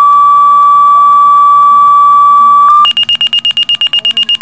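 Fire department pager being toned out for the daily pager test: a loud steady tone for about three seconds, then rapid high beeping of about eight beeps a second as the pager alerts.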